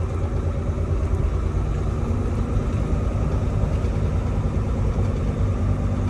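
Tractor-trailer truck's diesel engine running with a steady low rumble. A faint steady hum joins it about two and a half seconds in.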